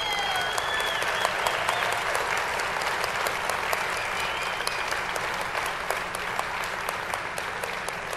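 Audience applauding and cheering after an applause line in a speech. The clapping is dense and steady, with a few shouts at the start, and eases a little near the end.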